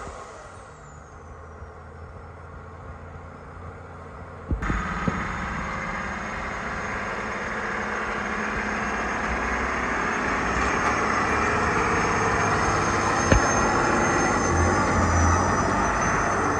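Off-road competition truck engine running: quieter at first with a falling high whine, then a sudden jump to a louder, fuller engine noise about four and a half seconds in that slowly builds, with a couple of sharp knocks.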